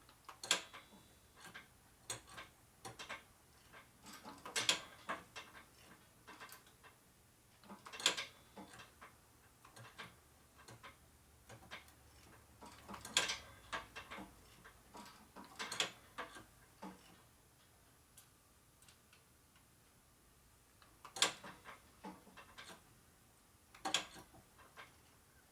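Scattered light clicks and knocks, a small cluster every few seconds, from the motorcycle brake being pumped and released by hand while air is bled from the dry brake lines.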